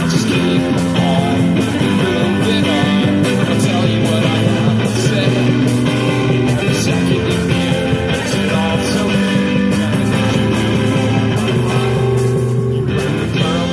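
Live street band playing: strummed guitar and held clarinet notes over a steady beat of drumsticks on plastic buckets.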